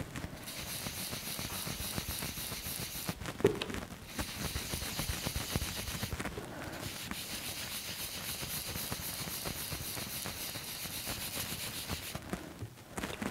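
Round foam mini ink blending tool rubbed in small circles over textured white cardstock: a steady scratchy brushing sound that pauses briefly about three seconds in and again near the end.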